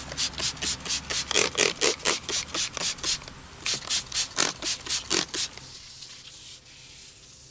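Hand trigger spray bottle squirting soapy water onto an aluminium rim in quick pumps, about four a second, in two runs with a short break about three seconds in. Near the end, faint rubbing as wet sandpaper goes over the wet rim.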